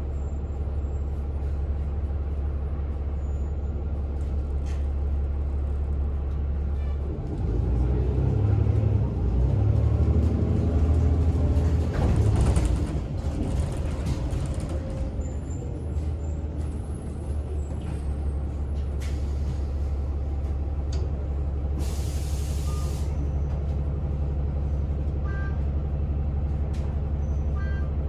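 Orion VII NG city bus heard from inside the cabin. The engine idles, then runs louder and rises in pitch as the bus accelerates away about seven seconds in. It eases off, and about 22 s in there is a short, sharp hiss of air from the brake system as the bus stops, then a steady idle.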